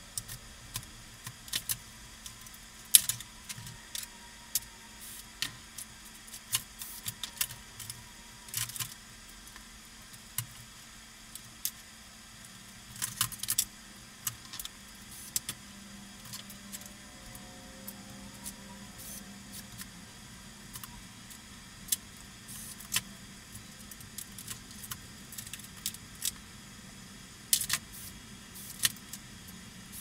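Metal parts of a Smith Corona electric typewriter's typebar mechanism clinking and clattering at irregular intervals as it is handled and taken apart. There are sharp clicks and knocks throughout, the loudest about three seconds in and again near the end.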